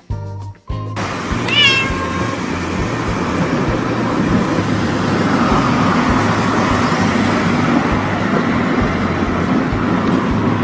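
A short, high animal call, once, about a second and a half in, over a loud steady noise that follows a second of music.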